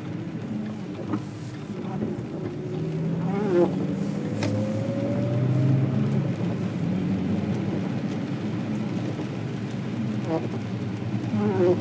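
Inside a moving car on a wet road: the engine runs with a steady low hum over tyre noise, and its pitch rises slowly for a few seconds as the car picks up speed. There is a single click about four and a half seconds in.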